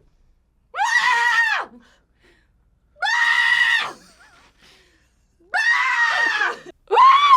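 Fox mating call: a series of loud, harsh, screaming calls, each about a second long and arching slightly in pitch. Three calls come with pauses of about a second and a half between them, and a fourth begins near the end.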